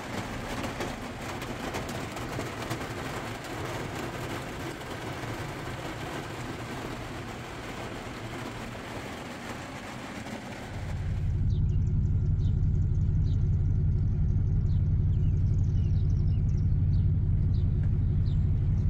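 Heavy rain pattering on a vehicle's roof and windows, heard from inside the cab as a dense, steady patter. About eleven seconds in it cuts abruptly to a louder, steady low rumble with a few faint short chirps over it.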